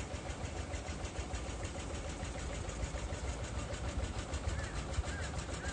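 Steady low outdoor rumble with a faint regular ticking; near the end a bird gives a run of short chirps, about two a second.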